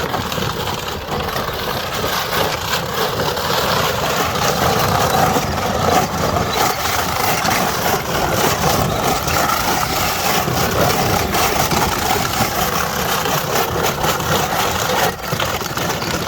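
Power Wheels Jeep Hurricane ride-on toy's electric motors and gearboxes running steadily under load, boosted by a 20-volt DeWalt battery, with scattered clicks and knocks.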